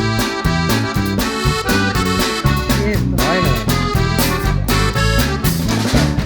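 Instrumental background music with an accordion-like lead over a steady bass beat.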